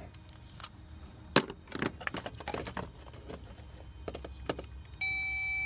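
Light metallic clicks and clatter of handling, the sharpest about a second and a half in. Near the end a steady electronic tone starts and keeps sounding.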